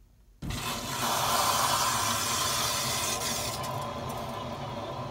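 Water rushing through the supply pipe as a 1-inch ball valve is opened to fill the sprinkler line. It starts suddenly about half a second in, is loudest for the next couple of seconds, then settles into a steady hiss.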